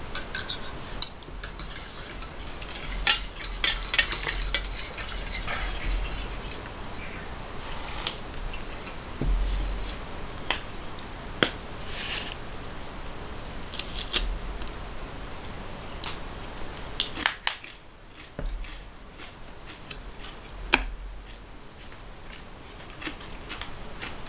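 Dishes and cutlery clinking and knocking as they are handled, a string of separate sharp clicks and taps, with a dense hiss in the first few seconds.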